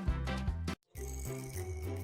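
Background music with a steady beat, cutting out briefly just under a second in before starting again.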